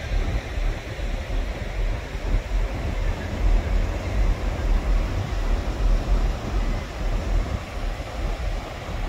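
Wind buffeting the microphone, with a low uneven rumble, over the steady wash of surf breaking on a sandy Gulf beach.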